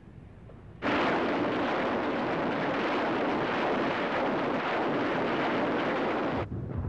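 Multiple rocket launcher firing a salvo: a continuous rushing roar that starts suddenly about a second in and cuts off abruptly near the end.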